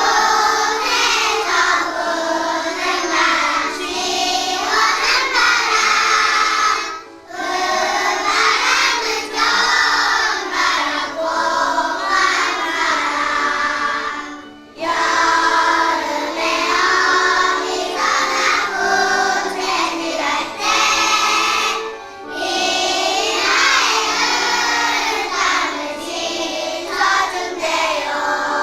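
A children's choir singing a song with instrumental accompaniment, in phrases of about seven seconds separated by short breaks.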